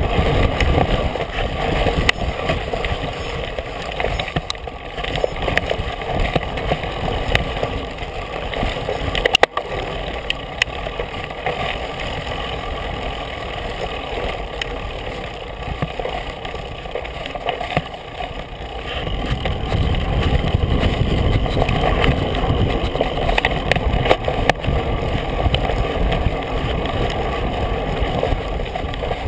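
Wind buffeting a bike-mounted camera's microphone while a mountain bike rolls fast over a dirt trail, with scattered knocks and rattles from the bike. The low wind rumble gets stronger about two-thirds of the way through.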